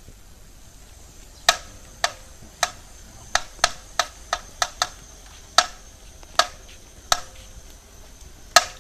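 Buell XB12 rear wheel making sharp clicking pops, about a dozen at uneven intervals over a faint steady high tone. It is an abnormal noise that is present even though the wheel bearings have just been replaced.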